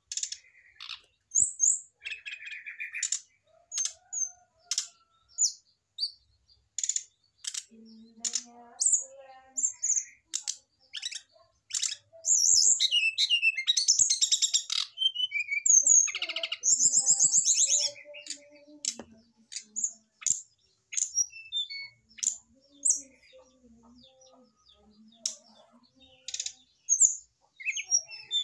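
Caged brown-chested jungle flycatcher calling, stirred up by a female nearby. Short sharp high calls come about every second, broken by two longer rapid bursts of song, the loudest, about twelve seconds in and again about sixteen seconds in.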